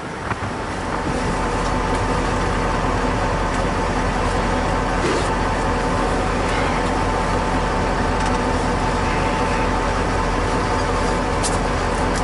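Diesel engine of a KhTZ-17221 wheeled tractor running steadily. It picks up about a second in and then holds a constant drone.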